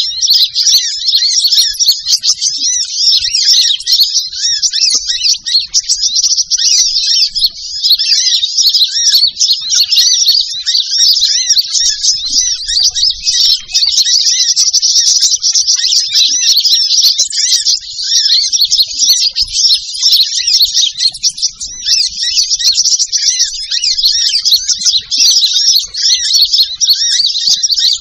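Lure recording of burung matari, a sunbird: a dense, unbroken stream of high, rapid twittering and trilling.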